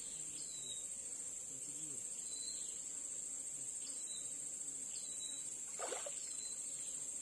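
Insects droning steadily at a high pitch, with short high chirps every second or so and faint low voices. A brief rushing sound comes about six seconds in.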